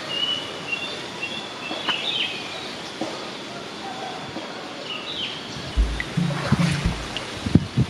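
Birds chirping in short calls over a steady outdoor hiss; from about six seconds in, low rumbling thumps come in on top.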